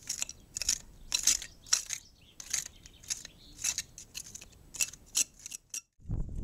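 Hand trowels scraping over the soil floor of an excavation trench in steady strokes, about two a second, with a few quicker short scrapes before the sound cuts off shortly before the end.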